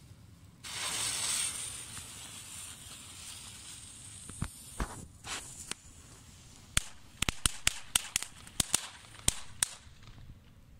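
Comet Spiderlight firework going off. A hissing burst lasts about a second, then a few scattered pops, then a quick run of sharp crackling cracks in the last few seconds.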